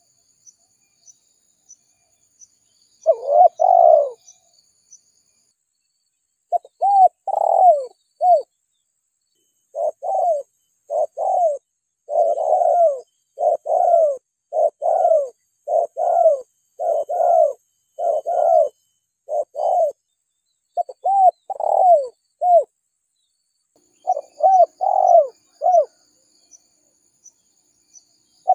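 Spotted dove cooing: short, arched coos in repeated phrases. The coos pause for the first few seconds, then come in a near-continuous run from a few seconds in until near the end. This is the call used as a lure to draw spotted doves in.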